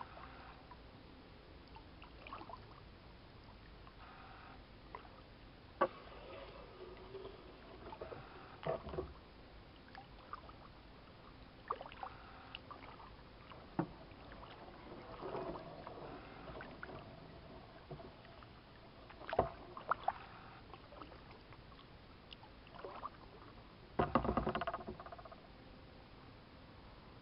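Kayak being paddled across calm water: quiet paddle splashes and drips, with a few sharp knocks scattered through and a louder, longer rubbing burst near the end.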